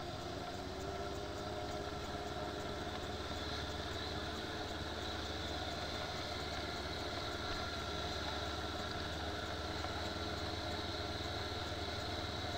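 Motorcycle engine running steadily at an even cruise, mixed with wind and road rumble, heard from a camera mounted on the moving bike.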